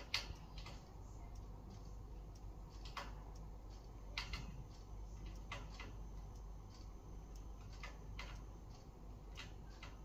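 Scattered light clicks and taps, coming at uneven intervals, over a low steady hum.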